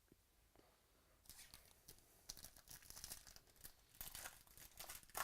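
Faint, irregular crinkling and rustling of trading cards and packaging being handled, starting about a second in.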